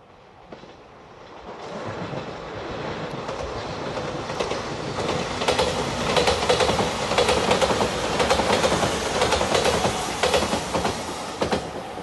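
Five-car JR Shikoku Shiokaze limited express in white Anpanman livery passing at speed. The sound builds as the train approaches, then a fast run of wheel clicks over the rail joints comes in from about five seconds and stops sharply near the end.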